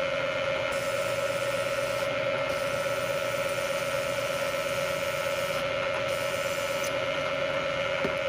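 Bridgeport milling machine spindle running at about 800 RPM while a 1/2-inch annular cutter drills through quarter-inch steel flat bar, a steady tone over an even cutting hiss.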